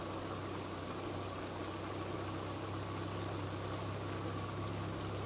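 A steady low mechanical hum under an even hiss of background noise, with no distinct event.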